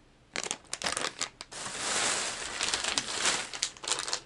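Plastic packaging crinkling and rustling as packs of soft-plastic fishing worms are handled, starting about half a second in and busiest in the middle.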